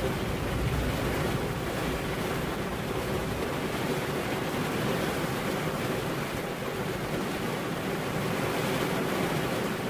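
Steady heavy rain, an even hiss, with a low rumble of distant thunder in the first few seconds that fades away.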